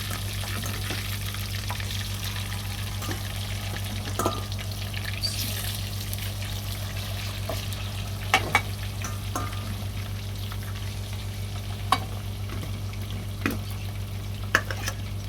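Chicken pieces frying in hot oil in a pot, a steady sizzle over a constant low hum, with a few sharp clinks of a spoon against the pot as the pieces are stirred.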